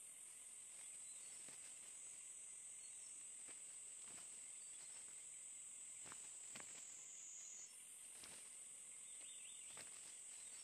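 Faint, steady high-pitched insect chorus that shifts slightly in pitch about three-quarters of the way through, with a few faint scattered ticks.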